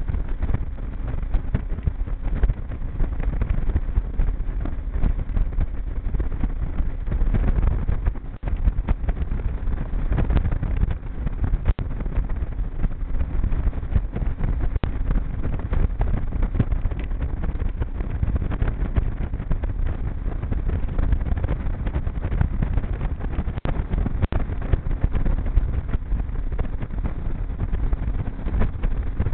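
G3 V167 aluminium boat running under outboard power: wind rushing over the microphone and a faint steady engine hum, with frequent short knocks as the hull meets the chop.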